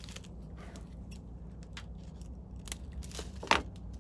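Fly-tying scissors snipping and handling strands of synthetic flash for a teaser: a scatter of light snips and clicks, with one sharper snip about three and a half seconds in.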